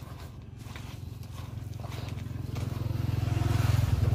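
A motorbike engine running with a low, steady note, growing louder over the few seconds as it draws near.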